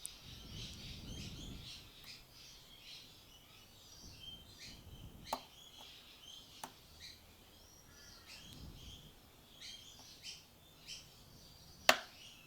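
Pins of a Lockwood V7 pin-tumbler lock being lifted with a pick: a few faint ticks, then one sharp click near the end as the pin sets. Birds chirp in the background.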